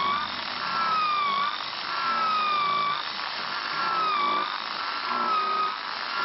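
Electric drill motor whining as a Forstner-type bit bores into a block of wood. Its pitch sags and recovers about every second and a half as the bit bites in under load.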